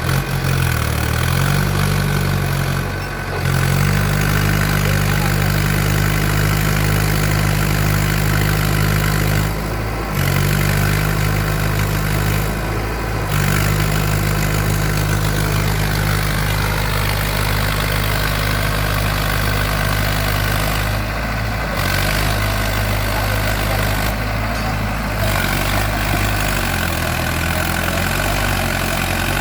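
Heavy diesel machinery running steadily, from the tractor and backhoe loader at work. The engine note drops briefly and picks up again several times.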